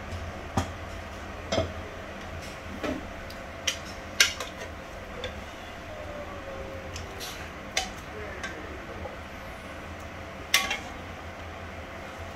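Metal ladle and slotted spoon clinking and scraping against metal pans as seafood is scooped out of sauce: about ten irregular sharp clinks, the loudest about four seconds in, over a steady low hum.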